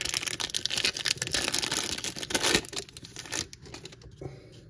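A trading card pack's wrapper being torn open and crinkled in the hands, a dense crackle that is loudest about two and a half seconds in and dies down after about three and a half seconds.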